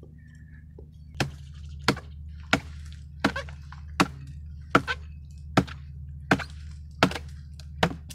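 Hatchet chopping into a dry fallen tree trunk: about ten sharp strikes, roughly one every three-quarters of a second, starting about a second in.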